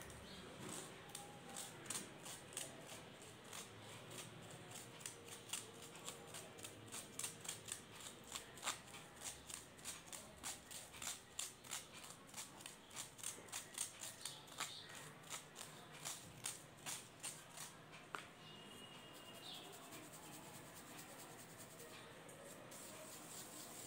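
Mothballs being crushed into powder: a run of crisp crunching crackles, about two a second, that stop about 18 seconds in.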